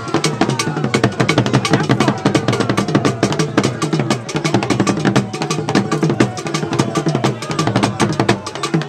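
Asante traditional drumming at a chief's procession: many drums and sharp wood-block-like clicks struck rapidly in a dense, driving rhythm.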